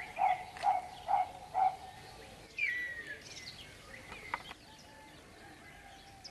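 Backyard birds calling at dawn. A run of short, low notes repeats about twice a second for the first couple of seconds, then a falling whistle comes about two and a half seconds in, with scattered higher chirps around it.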